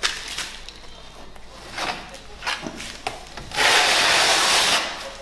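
A trowel scraping heat-resistant tile adhesive onto a tile, one long scrape about three and a half seconds in, with short knocks and taps before it.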